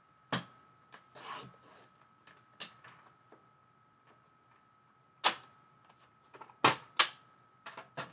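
Paper trimmer cutting a strip of glitter cardstock: a click, then a short rasping slide of the blade carriage about a second in. Scattered clicks and clacks follow from the trimmer's clear cutting rail and the paper being handled, the loudest three in the last three seconds.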